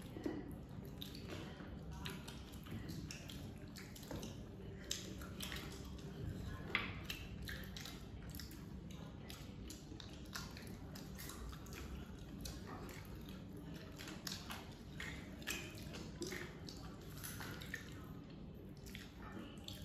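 People eating by hand: chewing and wet mouth sounds, with soft irregular clicks and squishes as fingers mix rice on plates.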